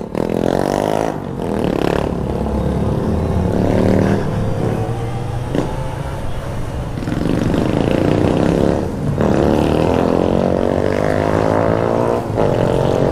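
Yamaha XJ6's 600 cc inline-four engine pulling through the gears. It rises in pitch and drops back at each gear change, several times.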